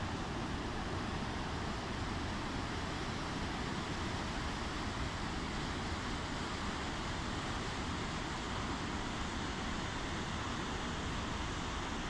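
Waterfall rushing steadily as white water pours over boulders into a pool.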